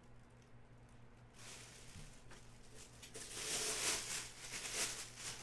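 Clear plastic bag crinkling and rustling as the wrapped football helmet is handled. It starts about a second and a half in and is loudest near the end, over a faint steady electrical hum.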